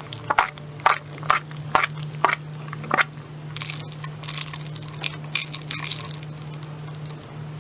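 Crunchy food being bitten and chewed close to the microphone: six sharp cracks about half a second apart, then a denser stretch of crackling crunches.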